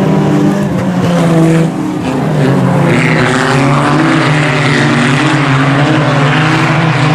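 A pack of IMCA Sport Compact race cars with four-cylinder engines running at racing speed. Several engine notes at different pitches rise and fall together as the cars go through the turns.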